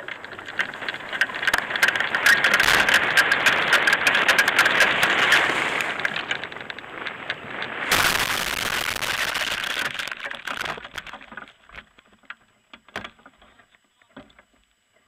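Hang glider take-off run and nose-dive crash heard from a camera on the glider: crackling wind and rustle on the microphone through the run, then about eight seconds in a sudden crash as the nose hits the ground. Scraping through dry grass follows and dies away into scattered knocks and rustles.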